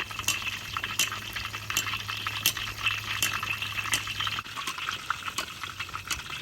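Whole marinated chicken deep-frying in hot oil: a steady sizzle with sharp, irregular pops and crackles. The chicken is partway through its 8 to 10 minutes of frying.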